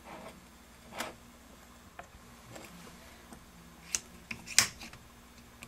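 A few light metallic clicks and taps from a Carlyle compressor's connecting rod being handled and worked on its crankshaft journal, the loudest cluster about four to four and a half seconds in.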